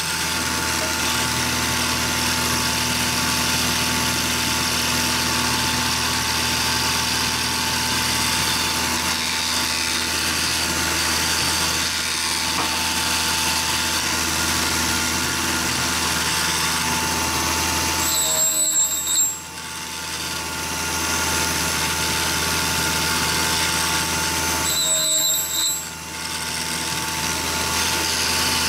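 Electric motor of a shop-made four-facet drill bit grinder running, with its wheel grinding a drill bit: a steady whine over a low hum. The sound breaks off and changes briefly twice, about two-thirds through and near the end.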